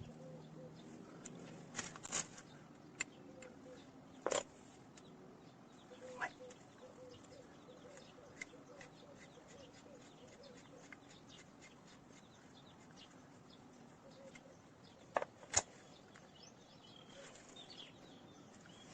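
A few sharp clicks and taps of small metal parts and tools being handled while a screw is fitted, spread out over quiet background, with faint bird chirps in the middle.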